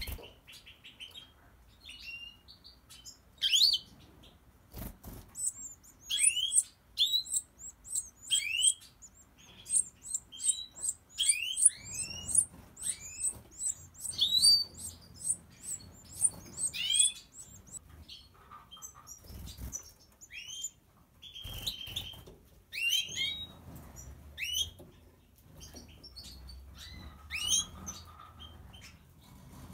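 Goldfinches of the large 'Major' race calling in a busy run of short high chirps and curved, sweeping notes with a few faster high twitters. Three knocks stand out, at about 5 s, about 19.5 s and about 21.5 s.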